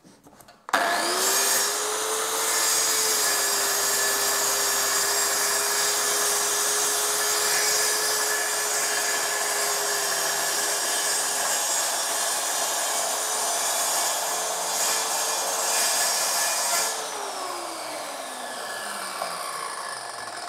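Redstone plunge circular saw on a guide rail starting up about a second in and cutting through a melamine board in a single full-depth pass, without a scoring cut first. It runs at a steady whine for about sixteen seconds, then is switched off and its pitch falls as the blade spins down.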